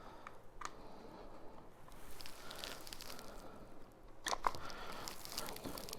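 Faint handling noises of the sander's plastic housing parts being fitted together: small clicks and crinkly rustling, with a cluster of sharper clicks about four seconds in.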